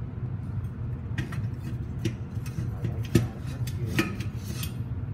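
Sharp metal clinks and knocks, the loudest about three seconds in and another about four seconds in, as a casting flask is set into the cradle on the arm of a centrifugal casting machine. A steady low hum runs under them.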